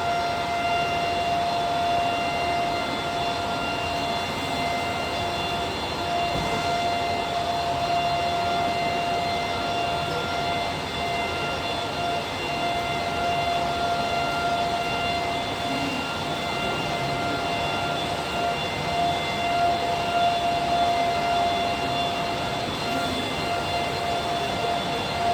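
Bacci T4MO CNC wood-machining centre running, with a steady high whine and a rush of machining noise.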